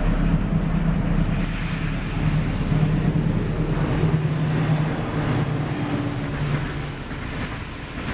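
Low engine hum of passing road traffic, shifting in pitch as vehicles go by and easing off near the end.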